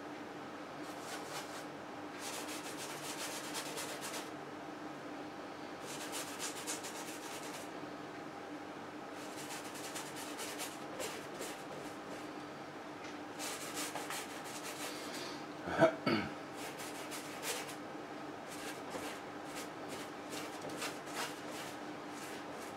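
Bristle paintbrush scrubbing paint onto a stretched canvas in repeated bursts of strokes, each a second or two long, over a steady low hum. A single sharp knock about two-thirds of the way through is the loudest sound.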